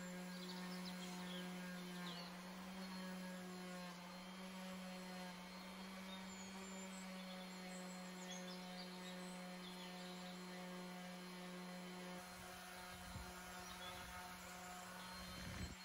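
Electric random orbital sander running with a steady, even hum as it sands a wooden dresser top, with a few low knocks near the end.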